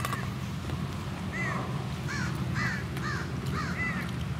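A bird calling repeatedly: short, arching calls a few times a second, over a steady low rumble.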